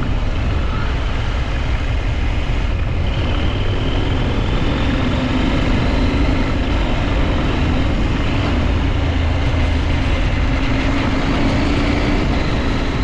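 2023 KTM 890 Adventure's parallel-twin engine running steadily while the bike is ridden, with wind and road noise at the camera mic.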